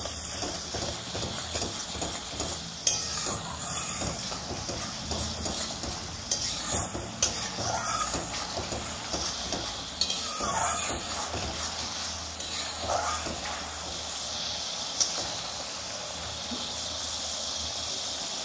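Spice paste sizzling in hot oil in a metal kadai, stirred and scraped with a metal spatula, with a few sharp taps of the spatula against the pan. For the last several seconds it is mostly steady sizzling.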